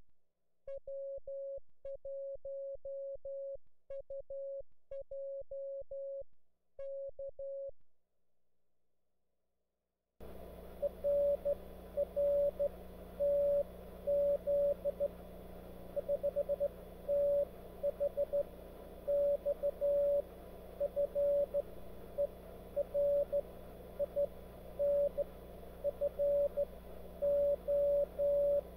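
Morse code (CW) on an Elecraft K3 transceiver on 10 meters, heard as a single-pitch tone keyed in dots and dashes. For about the first eight seconds the tone is clean with no background, as from the transceiver's sending sidetone; after a short pause, about ten seconds in, Morse at the same pitch continues over steady band hiss and hum, as a signal received over the air.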